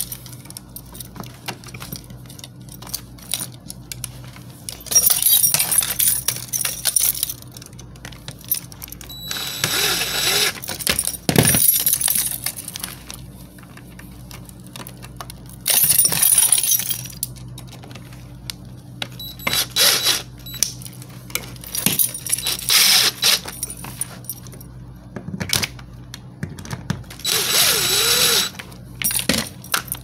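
A duplex receptacle being pushed into a metal electrical box and mounted: bursts of metallic clinking and scraping come every few seconds over a steady low hum, and a cordless drill-driver runs briefly near the end on a mounting screw.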